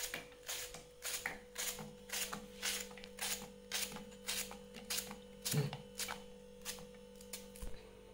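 Kitchen knife slicing a raw green plantain held in the hand, each cut a short crisp stroke at about two to three a second, the pieces dropping into a clay pot; the cutting stops shortly before the end.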